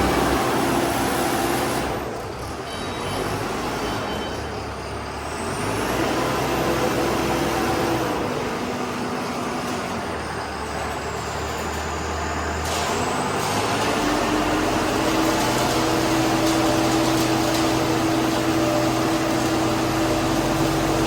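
Engine of a self-loading concrete mixer running steadily, with its pitch and note changing abruptly about two seconds in and again around thirteen seconds.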